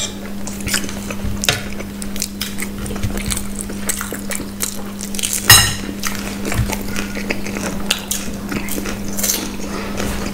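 Metal forks clinking and scraping on plates as people eat noodles, with a louder clatter about five and a half seconds in. A steady low hum runs underneath.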